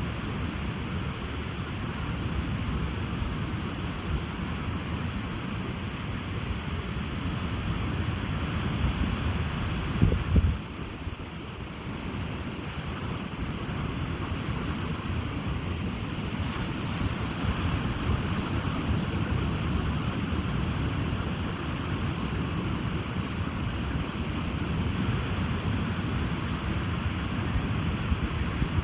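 Ocean surf washing on a beach under steady wind, with wind buffeting the microphone and one loud, low gust about a third of the way in.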